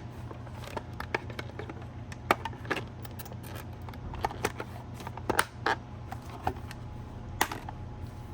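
Irregular small plastic clicks and taps from handling a car side mirror's cover and housing, over a steady low hum.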